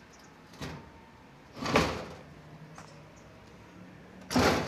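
Aluminium sliding screen door and its hook-and-eye latch being handled: three short rattling knocks, a small one about half a second in and louder ones near two seconds and near the end.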